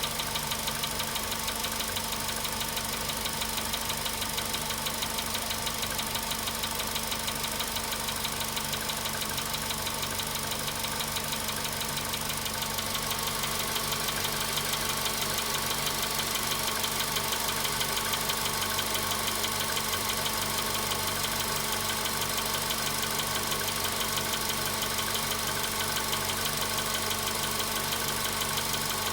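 Volkswagen Polo Sedan engine idling steadily with a fast, regular knock, the engine knock that the car has developed at 93,000 km.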